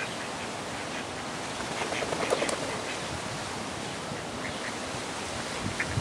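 A few faint mallard duck quacks, most of them around two seconds in, over a steady outdoor hiss.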